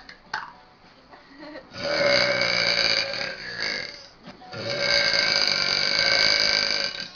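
A girl belching twice, two long, drawn-out burps one after the other, each lasting over two seconds.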